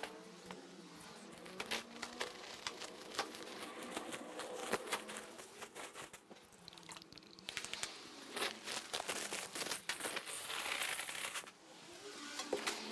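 A large plastic sack crinkling and rustling as it is handled, with many irregular small crackles and clicks.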